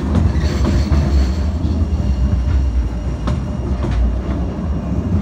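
A Sheffield Supertram tram passing close by: a heavy, steady rumble of steel wheels on street-running rail, with a few thin high tones over it and a handful of sharp clicks about three to four seconds in as wheels cross rail joints.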